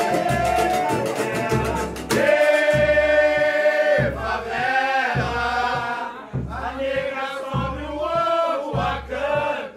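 Live samba: a group singing together over a nylon-string acoustic guitar and a hand-played drum beating deep about once a second. The singing swells louder about two seconds in as more voices join.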